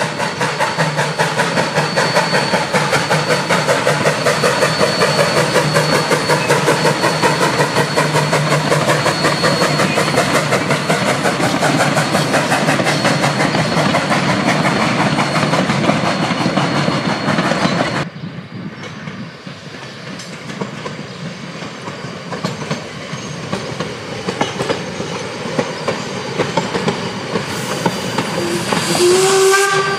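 1877 Rogers K88 'Washington' steam locomotive working past with a rapid, even beat of exhaust chuffs and its wheels clattering on the rails. The sound drops sharply about two-thirds of the way through, leaving the carriages' wheels clacking over the rail joints, and a short whistle toot sounds near the end.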